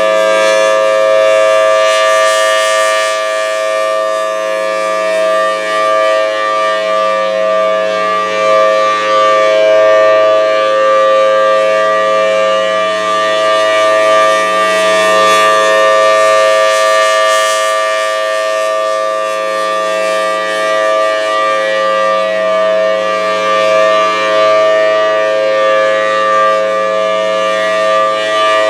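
Federal Signal Thunderbolt 1000T rotating outdoor warning siren sounding a steady alert, a loud sustained chord held at one pitch that swells and fades gently as the siren head turns.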